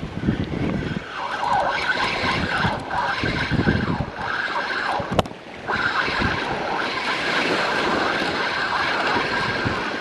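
A spinning reel being cranked to bring in a fish, its steady whir pausing briefly about five seconds in, over gusty wind buffeting the microphone and breaking surf.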